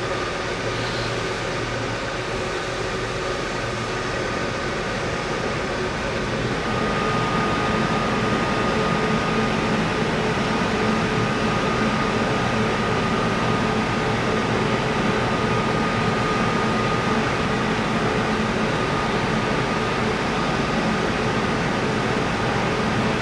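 Electric locomotive standing at the platform with its machinery running: a steady hum of cooling fans with a steady high whine over it. Before that, a freight train's wagons roll past with a steady rumble and hiss.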